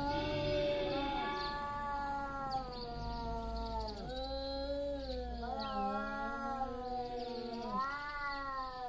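Two tomcats yowling in a territorial standoff before a fight: long, loud, wavering wails that break off and start again a few times. These are threat calls.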